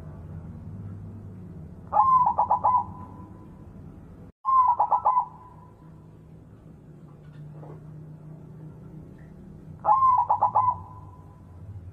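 A white zebra dove (perkutut) singing its staccato cooing song in three phrases a few seconds apart. Each phrase lasts about a second: an opening note followed by a quick run of clipped coos. A brief cut-out in the sound comes just before the second phrase.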